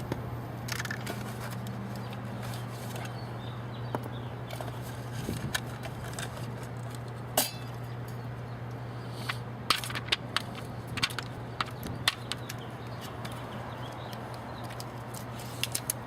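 Scattered sharp clicks and taps from handling a replacement air-conditioner capacitor and its parts, over a steady low hum.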